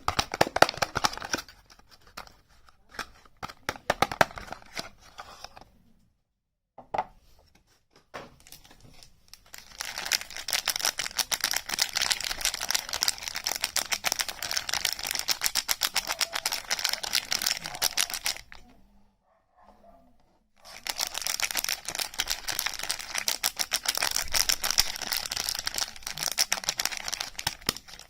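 Packaging being unwrapped: dense, rapid crinkling and tearing. It comes in long spells, with two short pauses in between.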